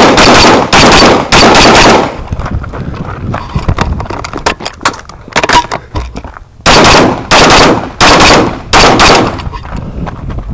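AR-15 rifle firing shots right at the microphone, each blast so loud it clips: three quick shots at the start, then a gap of about five seconds with only light clicks and knocks, then four more shots in quick succession.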